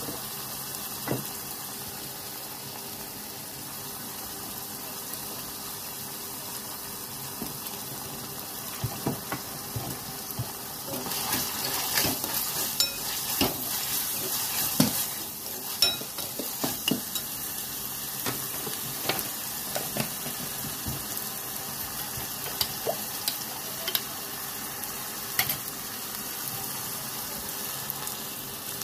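Vegetables sizzling as they stir-fry in a metal pan, with a steel ladle scraping and clinking against the pan as they are stirred. The stirring is busiest in the middle.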